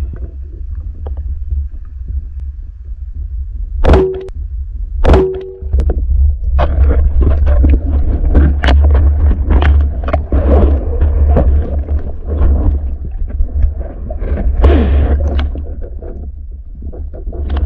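Speargun shot heard underwater: two sharp clacks about four and five seconds in, then continuous irregular rattling and knocking as the speared fish struggles on the spear shaft, over a steady low rumble of water on the camera housing.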